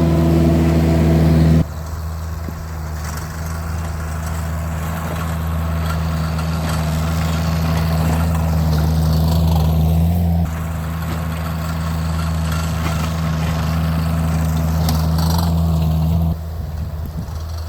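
Engine of a Vermeer compact loader running steadily while it pushes snow with a snow box. The sound drops suddenly about a second and a half in, again past halfway and again near the end, and slowly builds in between.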